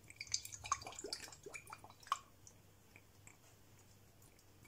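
Olive oil glugging out of a bottle as it is poured into a frying pan: a quick run of faint glugs and drips that stops about two seconds in.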